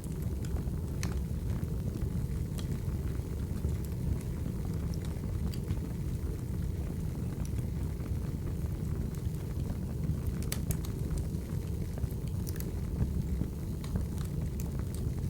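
Wood fire burning: a steady low rumble with scattered sharp crackles and pops, a small flurry of them about ten seconds in.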